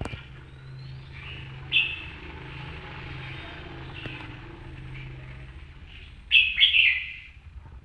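Bird chirping: a short call about two seconds in and a louder run of chirps around six and a half seconds in, over a steady low hum.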